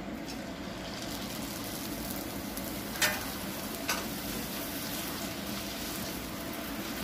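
Pani puri dough rounds deep-frying in hot oil in a wok, a steady sizzle. Two short sharp clicks, about three and four seconds in, as the slotted metal spoon knocks against the pan.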